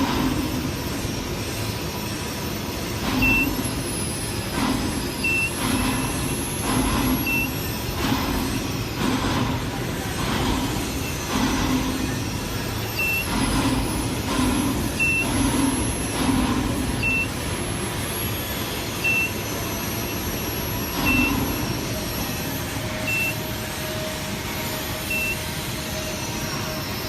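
Steady worksite machinery noise with uneven low rumbling surges, and a short high electronic beep repeating about every two seconds.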